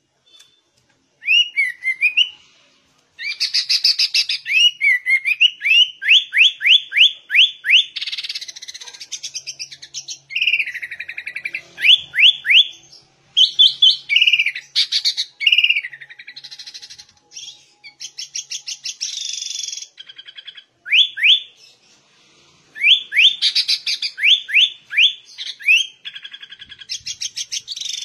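Sooty-headed bulbul singing vigorously: fast runs of rising whistled notes mixed with chattering stretches, in phrases broken by short pauses.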